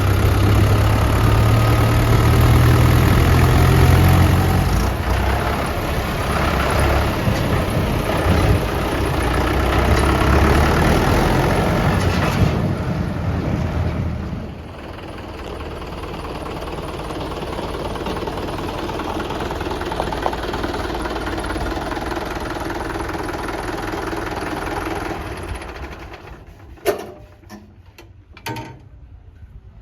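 Heavy diesel engine running loud, dropping to a quieter, steady run about halfway through, then fading out about 26 s in. A few sharp knocks follow near the end, the first of them the loudest.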